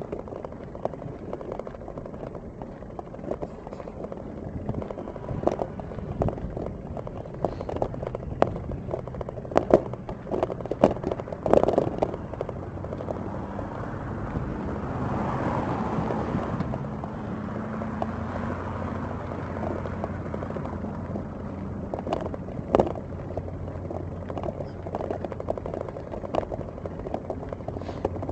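Outdoor street sound with a car passing about halfway through, its noise swelling and fading. Sharp clicks and knocks come and go throughout, and a steady low hum runs through the second half.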